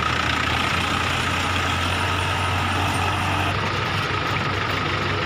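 Heavy engine, tractor or truck type, running steadily with a constant low hum; its tone shifts slightly about three and a half seconds in.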